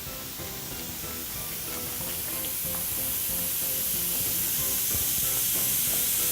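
Baking soda fizzing on frozen-vinegar ice cubes: a steady hiss of carbon dioxide bubbles that grows gradually louder.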